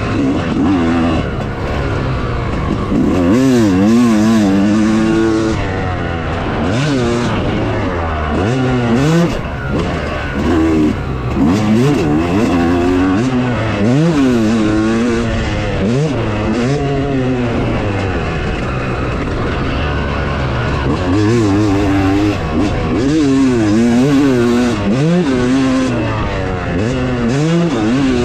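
Dirt bike engine revving while being ridden, its pitch climbing and dropping over and over.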